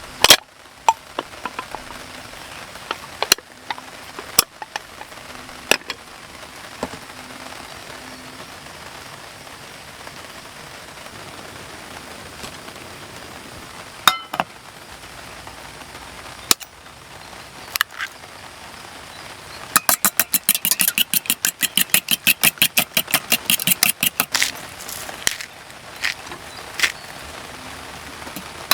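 Steady hiss of rain with scattered sharp knocks and clicks. About twenty seconds in, a quick rattling run of clicks lasts a few seconds.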